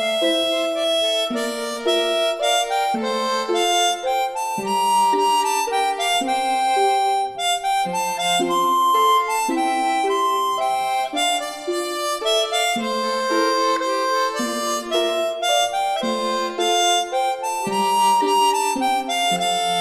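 Background music: a continuous instrumental melody of held, changing notes over chords.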